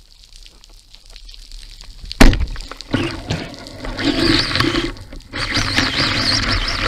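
Band-powered speargun firing underwater: a single sharp, loud crack about two seconds in. It is followed by continuous churning, rushing water noise as the speared fish pulls on the line.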